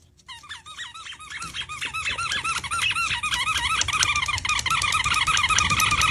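A rapid run of high squeaks, each rising and falling in pitch, coming several times a second and growing louder and denser, while a puppy paws hard at a white plastic lid on carpet.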